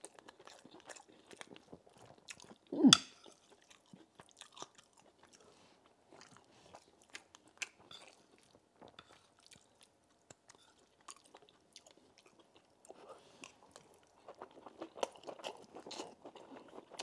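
Close-miked chewing of a spoonful of rice and palm-nut stew, with many small wet clicks and smacks. There is one much louder short knock about three seconds in, and the chewing grows denser and louder near the end as a full mouthful is chewed.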